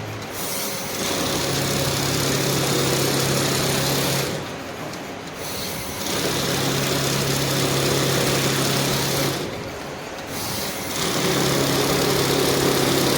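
Banknote counting machine running in three batches of about four seconds each, with short pauses between them. Each run has a steady motor hum under a high rustling rattle of notes being fed through.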